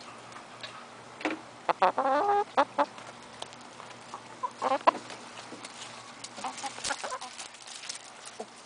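Chickens clucking in short bursts: a run of clucks from about one to two and a half seconds in, another couple near the middle, and fainter ones later.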